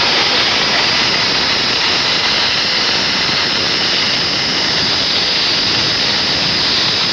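Steam locomotive blowing off a steady, loud hiss of steam from low down at its front end while standing at the platform, with no exhaust beats.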